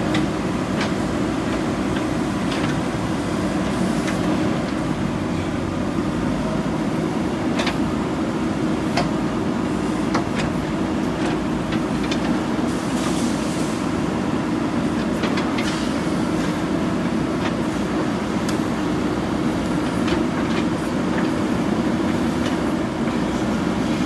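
JCB backhoe loader's diesel engine running steadily under work, with scattered sharp clanks and knocks throughout.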